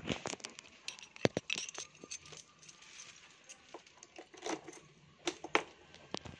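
Keys on a lanyard's metal clip jangling and clinking at a scooter's ignition lock as the key is fitted into it, with a few sharp clicks.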